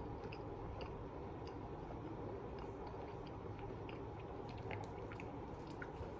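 A person chewing food with the mouth open enough to hear it: soft, irregular wet clicks and smacks over a steady low hum.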